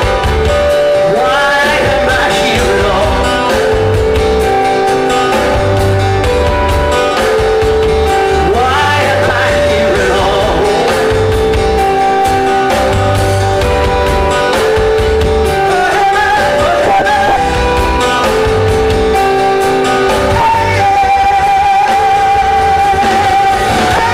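Rock band playing live: strummed acoustic guitar, electric bass and drums with a sung vocal line.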